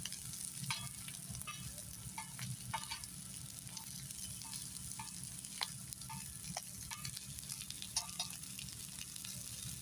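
Food cooking in a pan with no oil, sizzling steadily with many scattered crackles and ticks.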